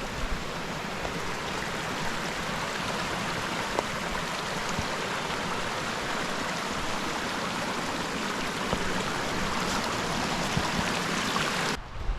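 Mountain creek water rushing steadily over rocks at a creek crossing. The rush cuts off abruptly near the end.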